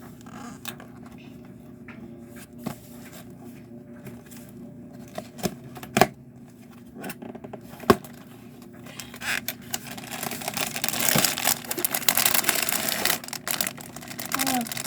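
A few sharp clicks and knocks as the kit's box is opened, then from about ten seconds in a plastic packaging bag crinkling as it is pulled out and handled. A steady low hum runs underneath.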